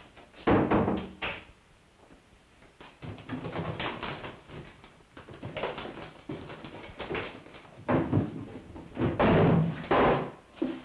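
Irregular knocks, clicks and rustling of a suitcase being handled and opened on a bed. The loudest spell of knocking comes near the end.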